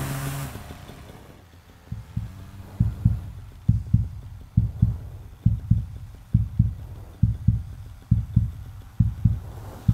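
Heartbeat sound effect: a low double thump (lub-dub) repeating a little under once a second. It starts about two seconds in as background music fades out.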